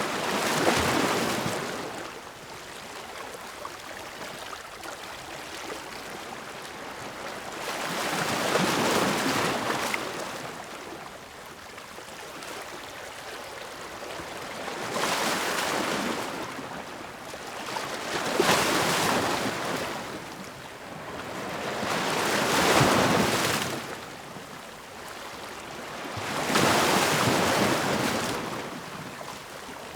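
Ocean waves breaking, about six surges of surf at uneven intervals of a few seconds, with a steady wash of water between them.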